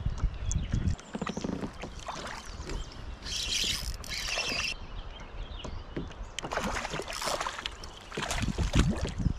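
Knocks and water splashing around a fishing kayak as it is handled on the water, with a short hissing splash about three and a half seconds in and a busier run of knocks and splashes in the last few seconds.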